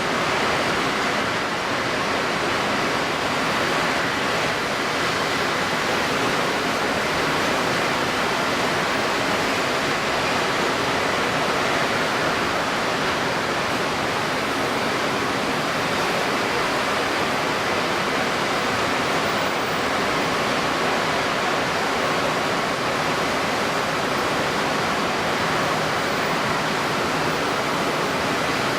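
Steady rush of strong wind and wind-stirred water, an even hiss with no distinct splashes, voices or engines.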